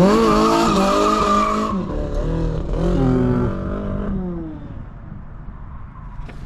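A 1980s Toyota Corolla's engine revving hard as the car slides, with tyre skid noise for the first couple of seconds. The revs climb again briefly about three seconds in, then die away.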